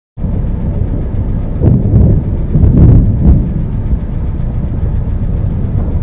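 Thunderstorm: a loud, low rumble that swells twice, around two and three seconds in, with a few sharp cracks. It cuts off suddenly near the end.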